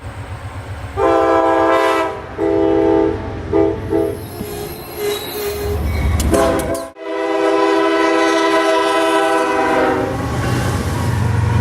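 Amtrak passenger locomotive sounding its multi-note air horn: two long blasts, a short one, a few broken shorter ones, then one long blast, over the low rumble of the train on the rails.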